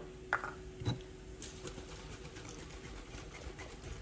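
Quiet kitchen room tone with a faint steady hum that fades out about three seconds in. Two light knocks come in the first second, from items being handled on the kitchen counter, followed by a fainter tick.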